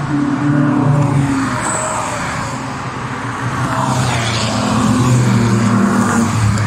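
Several cars driving past on a race track one after another, engines under load, with the pitch stepping as they accelerate. One car passes close with a rushing swell about four seconds in.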